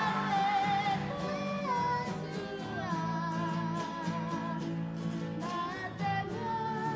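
Kapa haka group singing together to strummed guitars, the voices holding long notes with vibrato over a steady guitar rhythm.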